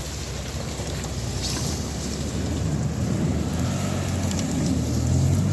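Mitsubishi Pajero 2's engine working under load as the 4x4 climbs a snowy slope, with a steady low drone that grows gradually louder.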